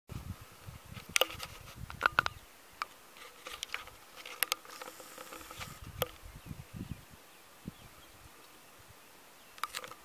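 Faint steady insect buzzing, with scattered sharp clicks and crackles, the loudest about a second in, around two seconds in and about six seconds in. No crowing.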